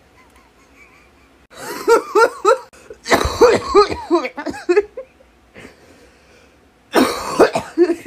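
A young person laughing hard in three breathy, coughing bursts, the first about a second and a half in, a longer one in the middle and a short one near the end.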